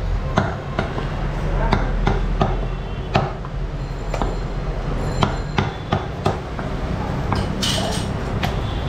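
Butcher's cleaver chopping beef on a wooden block, sharp irregular chops about two a second, over a steady low hum.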